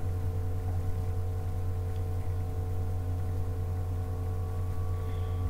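Steady low hum with a few faint steady tones above it, with no clear handling or cutting sounds standing out.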